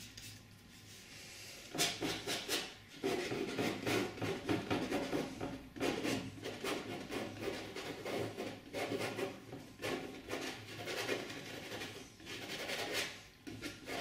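Painting knife spreading oil paint across a stretched cotton canvas: a run of irregular scraping strokes, beginning about two seconds in.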